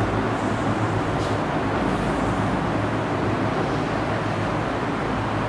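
Steady background noise with a low, even hum and no clear events.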